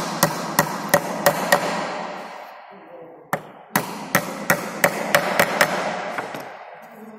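Hammer driving nails into the edge of a plywood box: two quick runs of sharp blows, about three a second, the first stopping about a second and a half in and the second starting about three seconds in.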